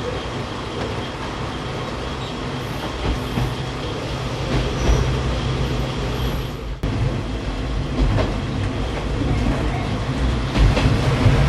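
KiHa 20 diesel railcar running along the line: a steady rumble of engine and wheels on rail, with a momentary drop-out about two-thirds through.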